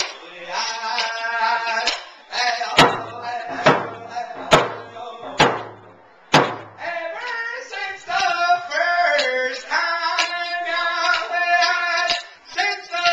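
A male singer singing a round dance song, accompanied on a hand drum. About two seconds in, the singing stops and five single drum beats sound roughly a second apart, then the singing starts again.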